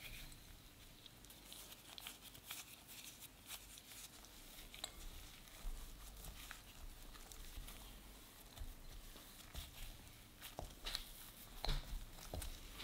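Gloved hand kneading and pressing crumbly matcha shortbread dough with chopped pistachios in a glass bowl. Faint, soft crumbly rustling with scattered small clicks and crinkles, the sharpest near the end.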